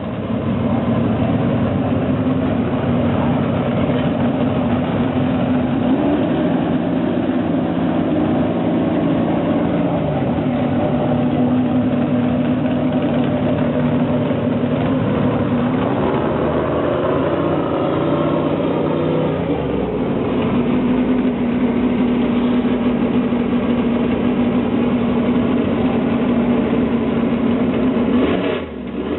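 Drag race car's engine running loud and steady, its pitch sagging and coming back up a few times, with a short dip near the end.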